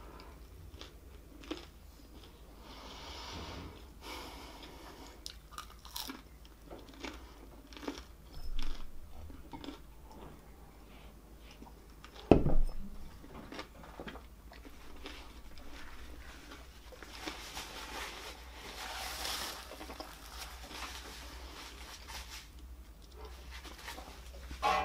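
Close-up chewing and crunching of breaded, fried fast food, with scattered small bites and mouth clicks. About halfway through, a single loud knock as a drinking glass is set down on the wooden board.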